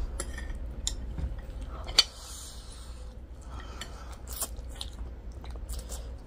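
Close-up eating sounds of two people eating noodles: chewing and mouth noises, with scattered small clicks of a fork and chopsticks on plates. A single sharp click about two seconds in is the loudest sound.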